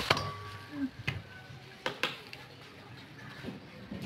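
A few sharp clicks and taps of metal forceps and knives against metal trays as milkfish are deboned, under faint voices.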